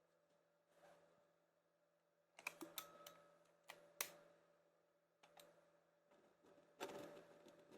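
Sharp clicks and knocks from handling a Walther LP 2 air pistol: a quick cluster about two and a half seconds in, a louder single click around four seconds, and another short cluster near the end.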